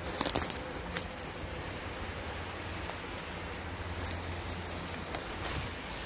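Footsteps on a forest floor of dry leaves, needles and twigs, with a few sharper crunches, over a steady hiss.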